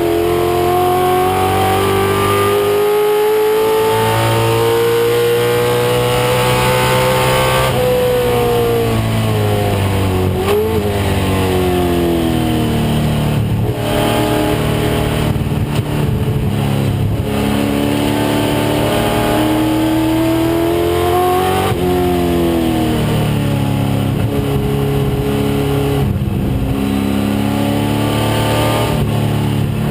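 1996 Ford Mustang race car's engine under power. The pitch climbs steadily, drops sharply about eight seconds in and again a little past twenty seconds, with a brief dip near ten seconds, and climbs again after each drop.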